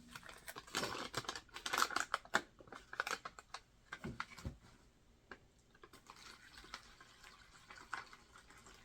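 Plastic MRE pouch packaging crinkling and crackling as it is handled and torn open, with a couple of dull knocks about four seconds in.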